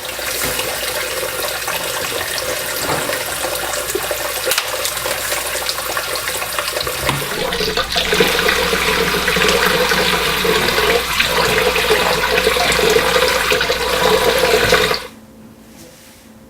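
Water running from a kitchen tap into a sink. It grows louder and fuller about halfway through and is shut off suddenly near the end.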